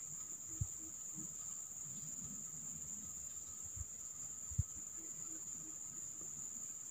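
Steady high-pitched drone of insects, with a few soft low thumps.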